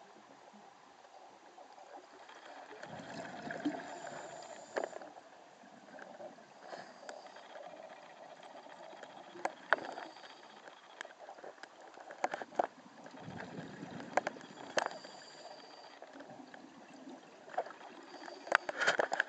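A scuba diver breathing through a regulator underwater: two rushes of exhaled bubbles about ten seconds apart, with scattered sharp clicks in between and a cluster of clicks near the end.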